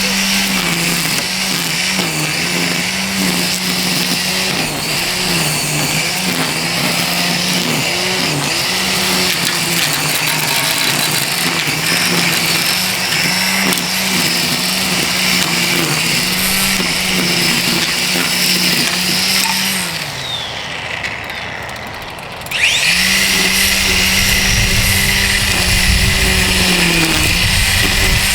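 DeWalt 20V Max brushless string trimmer running at speed, its pitch dipping briefly again and again as the spinning line loads up. About twenty seconds in the motor is let off and winds down, then spins back up about two seconds later and runs on steadily.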